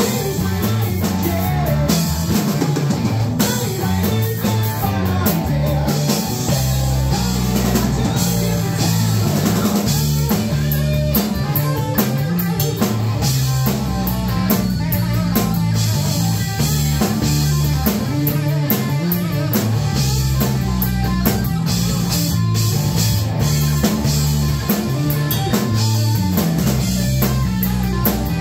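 A live three-piece rock band plays an instrumental passage with no vocals: electric guitar, electric bass and a drum kit with cymbals, playing steadily and loudly.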